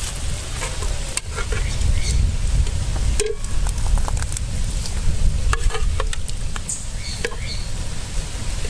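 A metal spoon clinking and scraping against a metal pot and pan as fish roe is ladled into broth cooking over a wood fire, with scattered sharp clicks over a steady low rumble.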